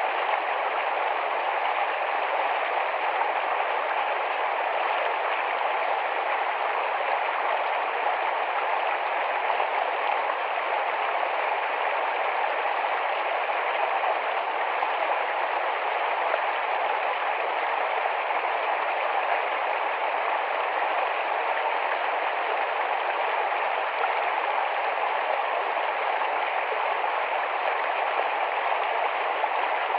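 Small, fast-flowing forest stream rushing and babbling over rocks, a steady unbroken rush of water.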